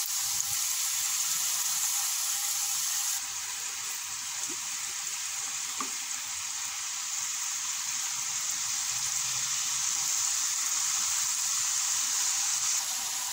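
Strips of stiff flour dough deep-frying in hot oil, a steady bubbling sizzle that dips slightly about three seconds in.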